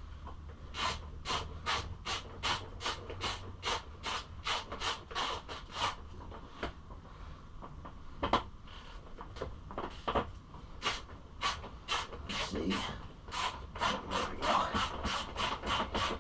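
Rhythmic back-and-forth rubbing strokes, about three a second, as in scrubbing or filing by hand. They pause for a few seconds in the middle, where there is a single sharp knock, then start again.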